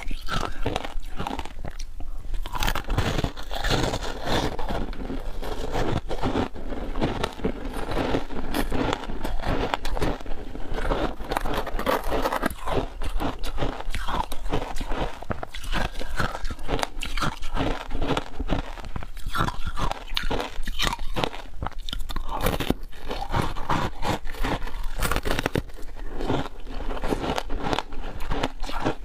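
A person biting and chewing frozen passion fruit shaved ice right at a clip-on microphone: a close, rapid, continuous run of crisp crunches.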